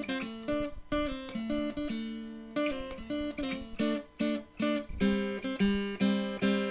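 Intro music: acoustic guitar picking a melody, one note after another, with some strummed chords.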